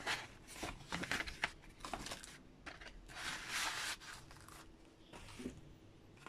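Rustling and scraping of packaging as a reel-to-reel tape reel and its cardboard tape box are handled in a cardboard parcel lined with bubble wrap: several short rustles, then a longer one about three seconds in.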